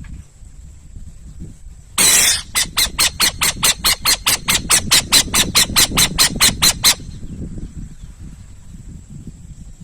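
Owl calling: a harsh screech, then a fast run of about twenty short, rasping hisses at four or five a second that stops abruptly, over a low rumble of handling or wind noise.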